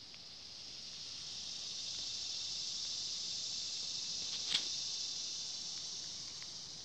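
Cicada buzzing, a steady high hiss that swells up over the first couple of seconds, holds, then fades away near the end. A single sharp click sounds about two-thirds of the way through.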